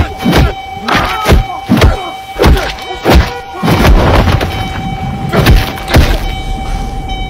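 Movie fight sound effects: heavy punches and body blows landing, one about every half second, over a steady high hum. The blows stop about a second before the end.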